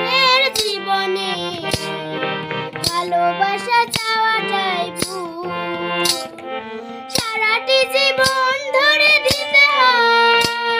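A young girl singing a sad Bengali song in a high, wavering voice that slides between notes, over recorded backing music with a steady beat of about one stroke a second.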